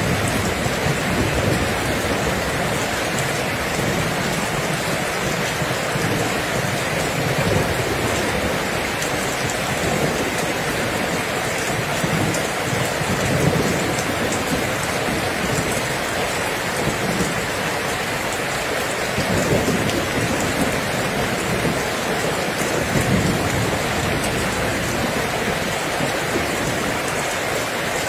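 Steady heavy rain, an even wash of falling drops, with low rumbles of thunder swelling and fading a few times.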